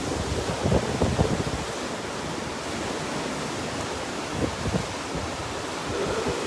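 Rushing floodwater from a flash flood, a steady noisy rush, with gusts of wind buffeting the microphone, strongest around a second in.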